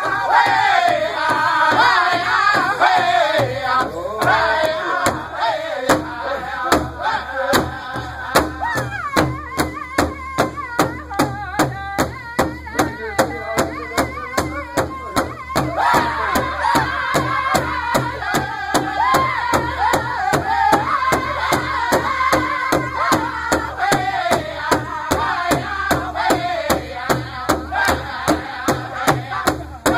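Powwow drum group singing a northern-style song in unison, with high-pitched voices over a large hide-headed powwow drum struck together with beaters in a steady, even beat. The singing thins for a few seconds around the middle and comes back fuller.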